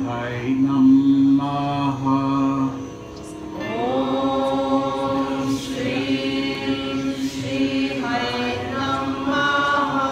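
Devotional mantra chanting: voices singing long held notes over a steady low drone. About three seconds in the sound dips briefly, then a new chanted phrase swells in, gliding up into its note.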